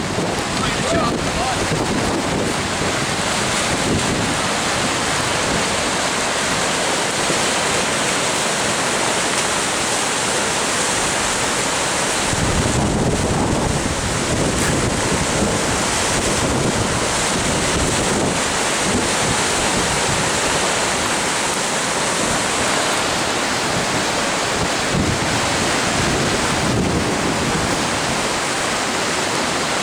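Rushing whitewater of an artificial concrete slalom channel, a loud steady roar of churning rapids.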